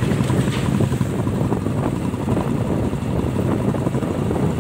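Motorcycle engine running steadily while riding at a cruise, heard from the bike itself, with wind rushing over the microphone.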